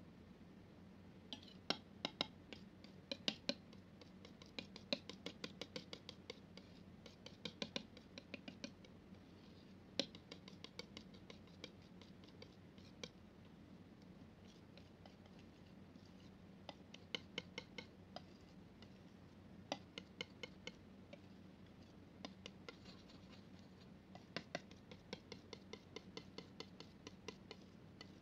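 Palette knife mixing and spreading thick wet paint: clusters of sharp, sticky clicks and light scrapes as the blade presses into and lifts off the paint, with short pauses between strokes.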